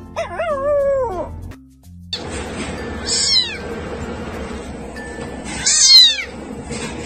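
A dog whines with a falling pitch in the first second or so. Then a very young kitten meows twice, short high-pitched calls that fall in pitch, about three and six seconds in, the second one louder.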